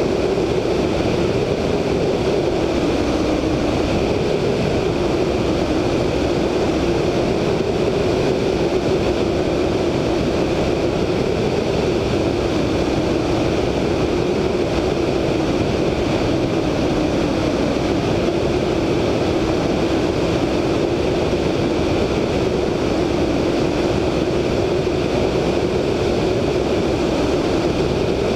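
VL Viima II biplane in level cruising flight. Its Siemens-Halske Sh 14A seven-cylinder radial engine drones steadily under a heavy rush of wind over the wing-mounted camera.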